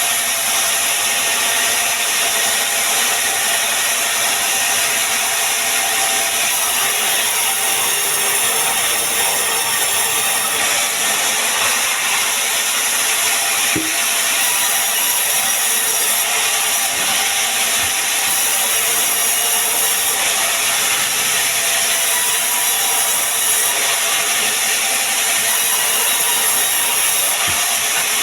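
Sawmill saw cutting steadily through pine wood, an even, unbroken cutting noise.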